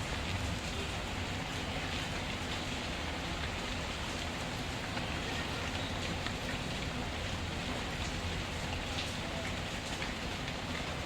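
Steady rain hiss with a wood fire crackling in a fireplace: scattered faint pops and ticks over the even sound of the rain.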